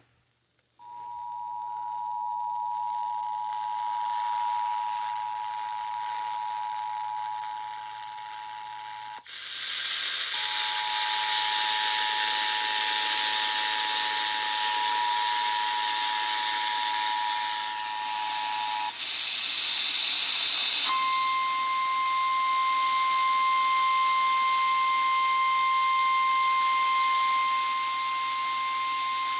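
Emergency Alert System two-tone attention signal (853 and 960 Hz) received over the radio, sounding twice for about eight seconds each with a short break. It is followed by the steady single 1050 Hz NOAA Weather Radio warning alarm tone. Steady radio hiss runs underneath, and the tones announce a relayed tornado warning.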